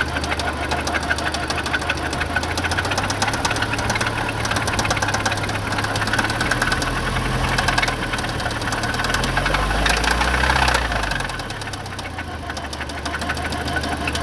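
Audi B7 A4 engine running with a rapid, steady knocking from the engine. The engine is briefly revved up and let back down to idle about nine seconds in. The owner has ruled out the timing chain and tensioner as the cause.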